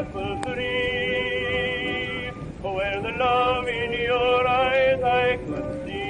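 Old phonograph recording of a sentimental song: sustained sung notes with vibrato over accompaniment, with a sharp click about half a second in.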